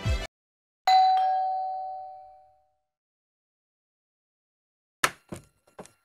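A doorbell chime: a single ding about a second in that rings and fades over about two seconds. Near the end come a few sharp clicks as the door's bolt and latch are opened.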